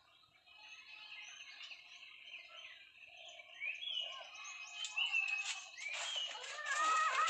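Chickens calling: a run of short, high chirping notes that grow louder, then stronger clucking calls in the last second or so.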